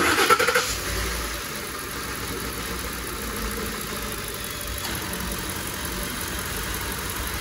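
Ford 5.4-litre Triton three-valve V8 starting with a brief loud flare, then idling steadily. It is run for a few seconds after fresh oil is added, to circulate the oil into the new filter before the dipstick reading.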